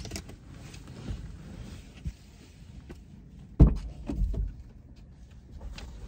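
Car doors of a Chevy Malibu being opened: a clunk at the start as the driver's door opens, then a louder thump about three and a half seconds in as the rear door opens and someone leans into the back seat, followed by a few smaller knocks and rustling.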